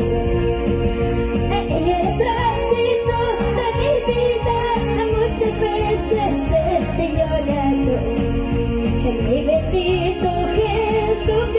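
A woman singing a praise song into a microphone over amplified band accompaniment with a steady beat.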